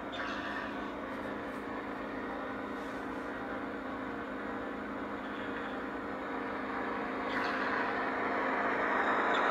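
O gauge model passenger cars rolling past on the track: a steady rolling rumble of wheels on rail with a constant hum, growing louder near the end.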